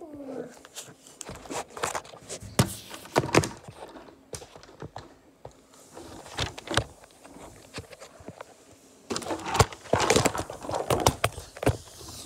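Irregular clicks, knocks and rustling from a phone being handled and turned about close to its microphone, growing busier in the last few seconds.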